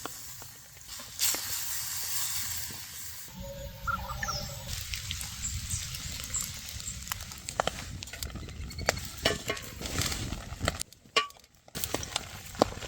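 Rain falling steadily with many scattered sharp taps and clicks, broken by a short drop-out about eleven seconds in.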